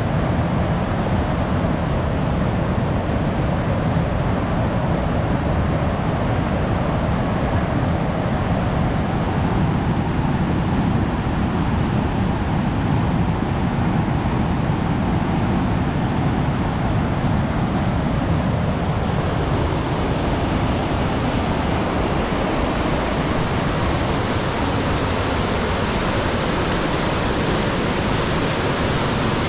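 Fast river rushing over rocky rapids, a steady loud wash of water. About three quarters of the way through it turns hissier and brighter.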